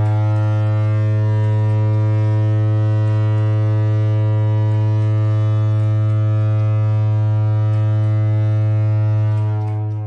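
A horn sounding one long, steady, low-pitched blast that starts abruptly and fades out near the end.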